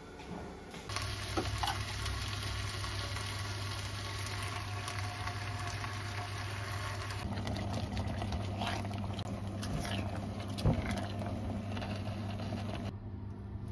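Vegetables sizzling and cooking in a pot on an induction cooktop, over a steady low hum, with scattered clicks and knocks of utensils against the pot.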